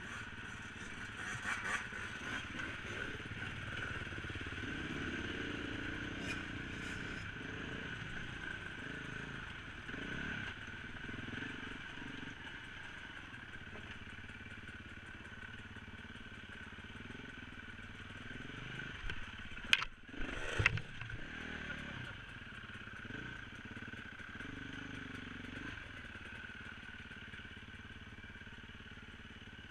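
Dirt bike engine running under way on a rough trail, its pitch rising and falling as the throttle opens and closes, heard from a helmet-mounted camera. Two sharp knocks about two-thirds of the way through.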